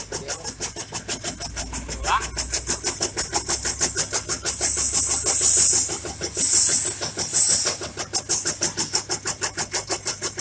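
Tobacco shredding machine running, its cutter chopping leaf in a fast, even rhythm of several strokes a second. Two louder hissing stretches come about halfway through, with a brief rising squeak about two seconds in.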